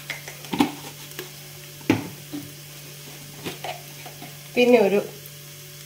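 Spoon stirring onions and freshly added spice powders in a tall pressure cooker, with a few sharp knocks against the pot, the loudest about two seconds in, over a faint sizzle of frying.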